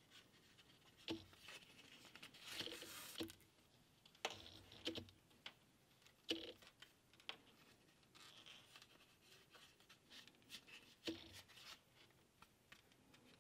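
Hand saddle-stitching of shell cordovan leather: thread pulled through the stitching holes with a soft hiss, among scattered light clicks and rustles of the leather and needles.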